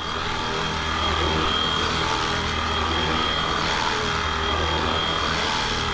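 FlyWing Huey UH1 V3 RC scale helicopter hovering low while yawing in place. Its electric motor and rotors run at a steady 65% throttle setting, giving a steady high whine over a low rotor hum.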